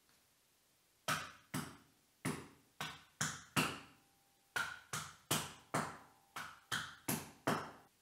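Hammer tapping plastic wall plugs down into holes drilled in a concrete floor: about fourteen sharp blows in quick runs of two to four, each ringing briefly.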